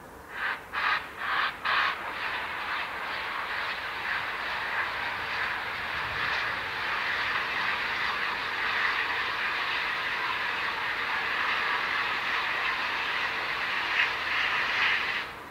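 Bulleid Rebuilt Battle of Britain three-cylinder steam locomotive exhausting as it approaches. Four loud, separate exhaust beats come in the first two seconds, then merge into a steady rush of exhaust that slowly grows louder and cuts off suddenly near the end.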